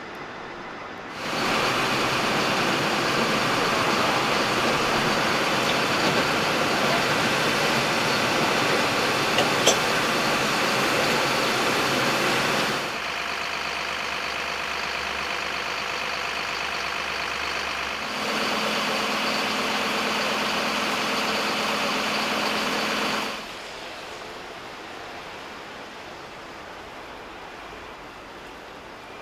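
Fire engine's diesel engine running steadily to drive the pump that feeds the connected hoses, with two short clicks about halfway through the loud stretch. The sound drops abruptly to a quieter engine note, rises again, and after about twenty-three seconds falls away to low background noise.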